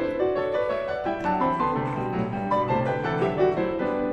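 Background music led by piano, a gentle melody of changing notes.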